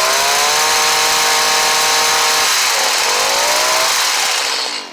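Stihl HS45 hedge trimmer's small two-stroke engine revved at high speed, dipping briefly about halfway through and revving back up, then dropping away sharply near the end.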